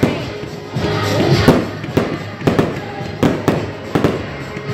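Aerial fireworks bursting in a rapid, irregular series of bangs and pops, with music playing underneath.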